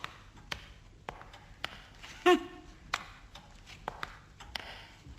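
Scattered light taps and clicks, about six spread irregularly, with a brief short vocal sound about two seconds in.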